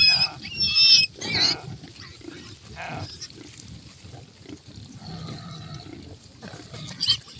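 Farm animals calling: several loud, high-pitched calls in the first second and a half, then quieter low calls.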